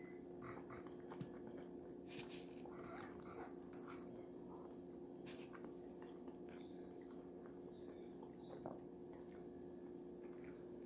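Close mouth sounds of someone chewing soft cheese fries with roast beef, with scattered small clicks, over a faint steady hum.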